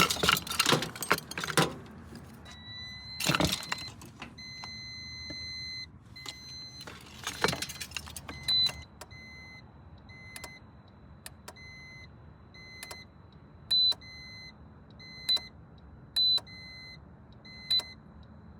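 Metallic jangling and clicking, like keys or hardware being handled, followed by an electronic beeper: first a steady high tone, then short high beeps repeating a little under a second apart.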